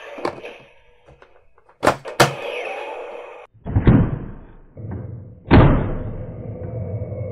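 Sharp plastic clicks and knocks from a toy Millennium Falcon's dart cannon being loaded and fired: two sharp clicks about two seconds in, then two heavier thumps, the second followed by a low steady hum.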